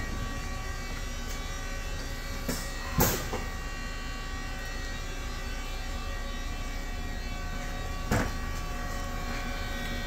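Haas VF-4SS vertical machining center running: a steady hum with several fixed whining tones. A few sharp knocks cut through it, the loudest about three seconds in and another near the end.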